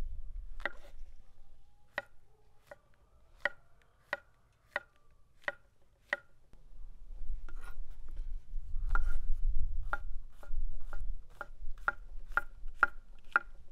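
A run of about twenty sharp knocks from food preparation, each with a short ringing tone. They come slowly at first, then quicker and steadier in the second half.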